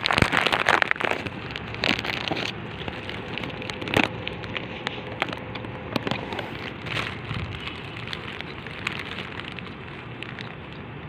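Steady water noise with scattered crackling clicks, busiest in the first second or so and easing slightly toward the end.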